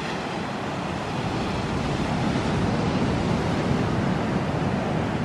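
Ocean surf breaking and washing up a sandy beach: a steady rushing that swells a little about a second in.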